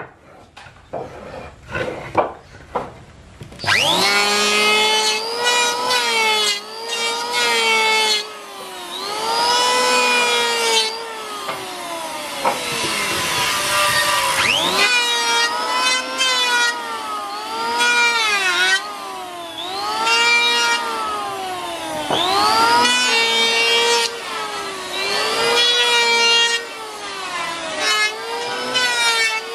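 A few knocks of wood being handled, then about four seconds in an electric hand planer starts and runs with a high whine, its pitch sagging and recovering again and again as the blades bite into the wood on each pass over the edges of a door panel.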